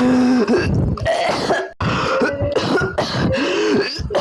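A person's exaggerated, goofy coughing: a run of about half a dozen short pitched coughs and throat-clearing noises with brief breaks between them.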